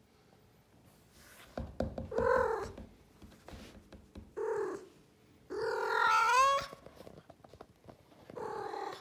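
Blue Maine Coon cat meowing four times, the third call the longest at about a second, its pitch bending upward at the end.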